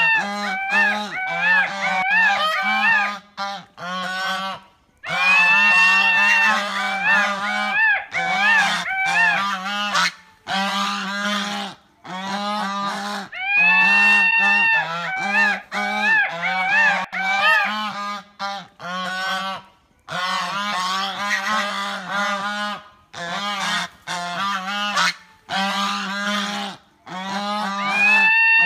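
Goose honking loudly and repeatedly: a long drawn-out honk followed by quick runs of shorter honks, the sequence recurring every seven or eight seconds.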